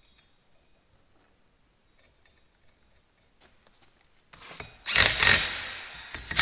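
A cordless drill runs in one short burst about five seconds in, a loud whir that dies away over a second or so. Before it come a few seconds of near quiet with faint clicks of small parts being handled.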